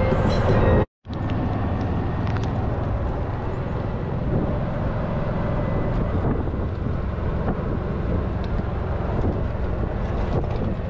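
Open golf cart driving along a paved path: a steady rumble of motor and tyres with wind buffeting the microphone. The sound drops out for a moment about a second in.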